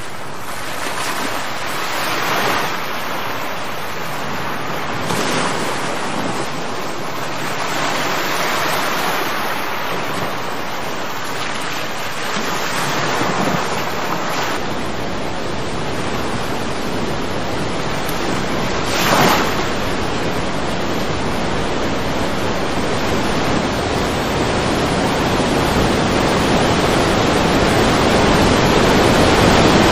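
Loud rushing floodwater with wind buffeting the microphone, a steady noise with a few brief surges that grows louder near the end.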